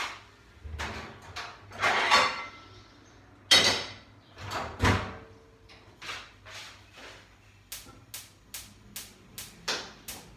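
Kitchen clatter of cookware and utensils being handled: several separate knocks and clanks, then a quick run of light sharp taps, about two or three a second, near the end.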